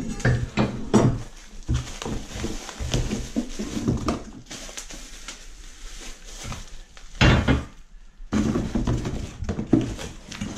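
Unboxing handling noise: metal pannier rack bars knocking and clinking as they are moved about, with irregular knocks and packaging noise and one louder, short burst of noise about seven seconds in.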